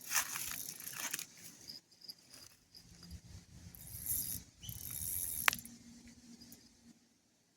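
Fishing reel and rod being handled while rebaiting and casting out: irregular mechanical clicking and whirring, with one sharp click about five and a half seconds in, then quiet.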